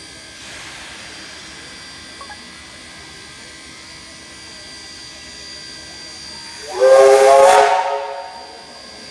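Steam locomotive 3526, a New South Wales C35 class 4-6-0, sounds its whistle once, a loud blast of several tones about a second and a half long near the end. This is the driver's signal that the engine is about to move off.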